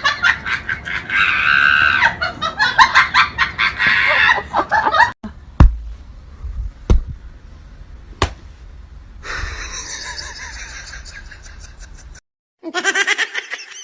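People laughing hard for about five seconds. A few sharp knocks follow, then a stretch of steady hiss-like noise and a short burst of voice near the end.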